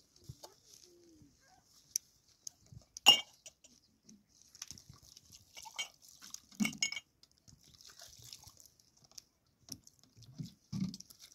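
Water pouring from a plastic jug into a plastic bowl, with light knocks and clatters of plastic containers being handled. There is one sharp click about three seconds in.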